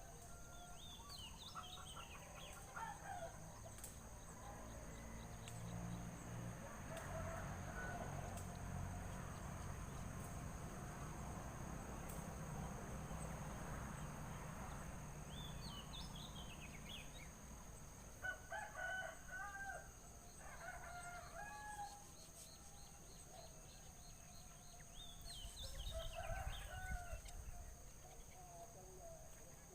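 Birds calling outdoors: scattered high, quick chirps, and lower, drawn-out calls about two-thirds of the way through and again near the end, over a faint low rumble.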